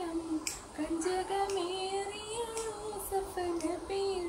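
A woman singing a Mappilapattu (Malayalam Mappila song) solo: one voice holding long notes that bend and wobble with quick ornaments, with brief pauses for breath.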